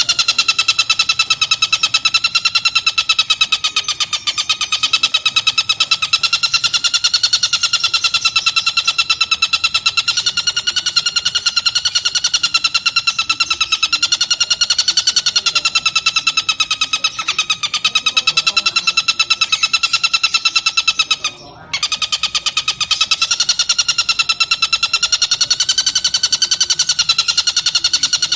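Tengkek buto kingfisher giving a very fast, unbroken rattling call, its pitch wavering gently, with one brief break about three-quarters of the way through.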